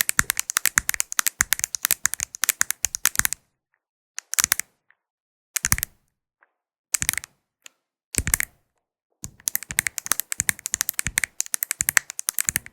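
Rapid, crisp tapping on the small glass mirror tiles of a mirror ball. It comes in a dense run, stops at about three seconds in, returns as four short separate bursts, then resumes as a dense run about nine seconds in.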